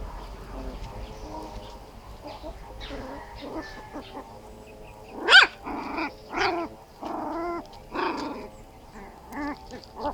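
Several puppies playing and vocalizing: faint at first, then a loud, high yelp that falls sharply in pitch about halfway through, followed by a run of short yaps.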